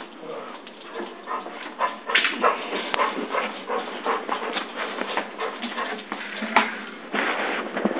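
Basset hound making repeated short whines and yips, with two sharp clicks, about three seconds in and again later on.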